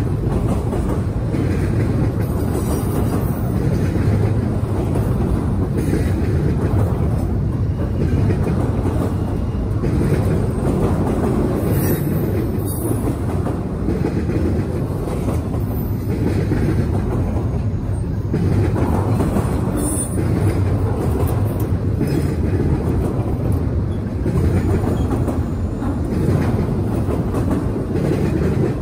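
Double-stack intermodal freight train's well cars rolling past at speed, a steady loud rumble of steel wheels on the rails.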